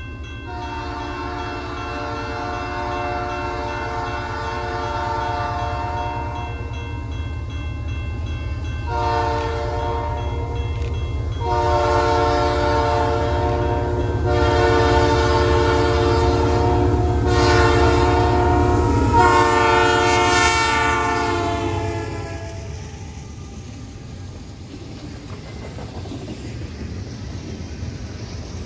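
Diesel locomotive air horn on a Canadian Pacific double-stack container train, sounding a chord of several notes: one long blast, then a run of shorter blasts with brief breaks, growing louder as the train nears. The horn stops about 22 seconds in, leaving the steady rumble and rail clatter of the container cars rolling past.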